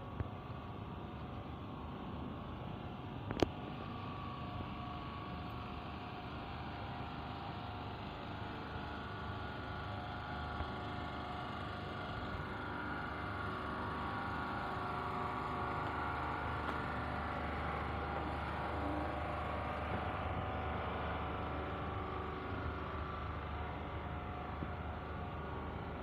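Steady outdoor street background: a low motor hum over even noise, growing a little louder in the middle, with one sharp click about three and a half seconds in.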